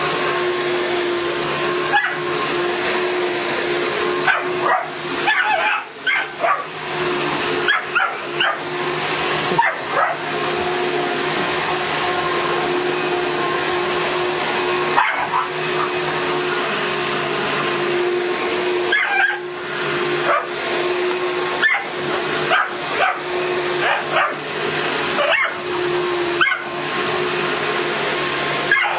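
A vacuum cleaner running steadily while a Boston terrier barks and yips at it in short, irregular bursts.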